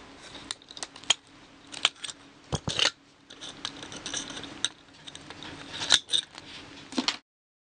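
Pliers cutting and twisting the binding wire off bamboo border edging, making a string of sharp clicks and snips at uneven intervals. The sound cuts off suddenly near the end.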